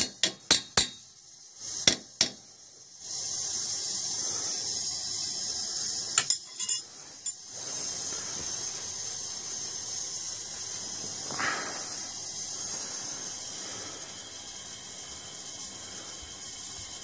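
A few sharp metallic clinks, then about three seconds in a steady high hiss starts as the hot-water heating system refills with water and air, with a few more clicks a few seconds later.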